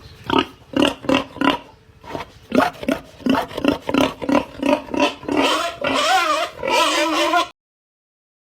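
Pig grunting in a fast run of short grunts, then squealing with a wavering pitch from about five seconds in, cutting off suddenly near the end.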